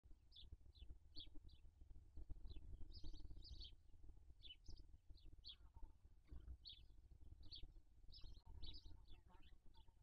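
Short, high bird chirps, several every second in uneven runs, over a low rumble and faint rustling.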